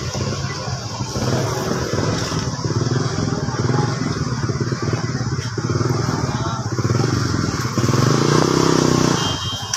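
A small engine running steadily with a fast, even pulse, louder for about a second near the end.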